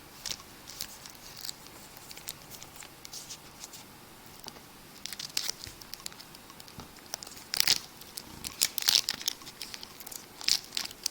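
Foil baseball card pack wrapper being torn open and crinkled by hand, a scatter of sharp crackles that get louder and busier in the second half.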